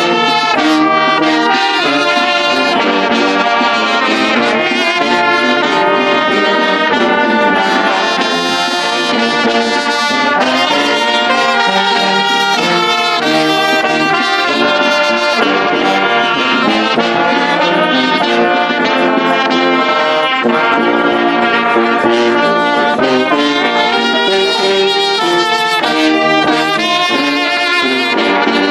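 Brass band of trumpets, trombones, euphoniums and a sousaphone playing a tune together, loud and unbroken.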